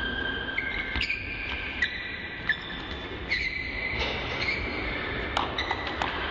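Basketball shoes squeaking on a sports-hall floor in long high squeals that shift pitch, with a few sharp knocks of the ball on the rim and floor.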